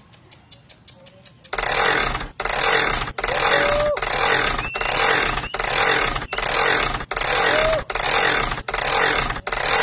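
Harsh engine-like revving in loud, regular bursts, about one every 0.8 seconds, starting about a second and a half in.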